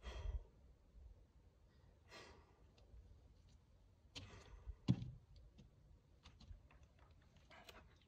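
A person breathing out hard, several breaths a couple of seconds apart, with light scattered clicks and one short, low thump about five seconds in, the loudest sound.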